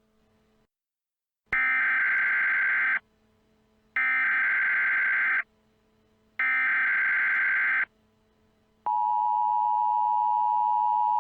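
Emergency Alert System signal: three identical bursts of digital SAME header data, each about a second and a half long with a second's gap between them. About nine seconds in, the steady two-tone attention signal comes on and holds.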